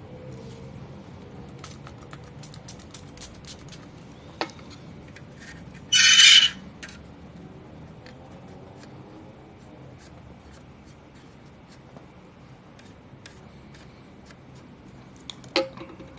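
Small clicks and taps of hands working on a graphics card with tools, with a loud half-second scrape or hiss about six seconds in and a sharper knock near the end.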